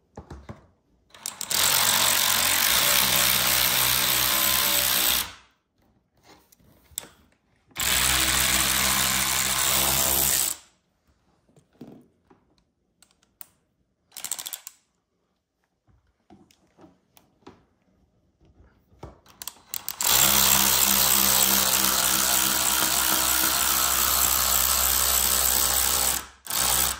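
Cordless ratchet driving a bolt on a car part in three steady runs, of about four, three and six seconds. Faint clicks and handling noises come in between.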